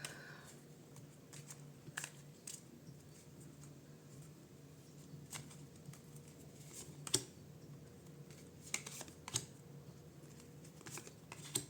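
Faint, irregular taps and light rustles of tarot cards being handled on a table, over a low steady hum.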